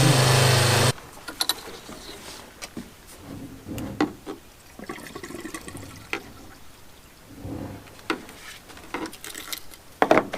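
A loud held chord of music cuts off suddenly about a second in, followed by scattered light knocks, clicks and rustles of handling.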